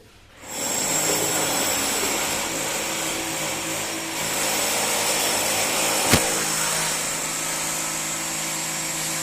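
An electric motor switching on about half a second in and running steadily with a high whine, one sharp click sounding about six seconds in.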